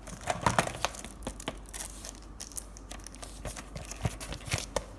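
Clear plastic wrapping on a wall clock crinkling and rustling as the clock is handled and turned over, with small taps and knocks in among it.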